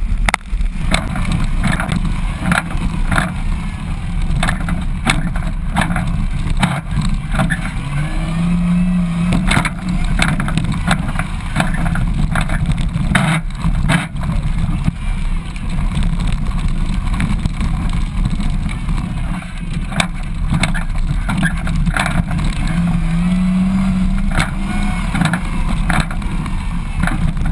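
Car engine running hard on a gravel rally stage, revs climbing sharply twice, with many sharp clicks and knocks from loose gravel and the rough dirt surface, heard from outside the car body.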